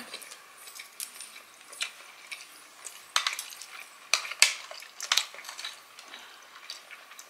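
Metal chopsticks clicking against each other and tapping on plates while picking up momos: scattered light clicks, a few in quick pairs.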